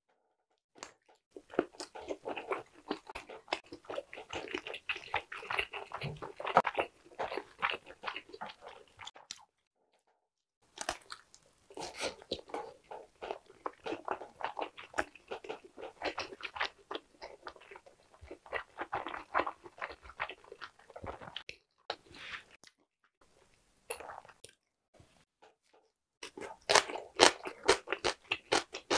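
Close-miked biting into and chewing of a whole Korean blood sausage (tong-sundae): a dense run of moist chewing clicks, pausing briefly about ten seconds in and again for a few seconds near the end before a loud fresh round of chewing.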